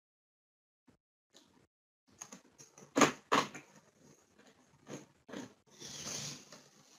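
Mostly quiet room tone from an open call line. There are two short knocks about three seconds in, then faint scuffling noises near the end.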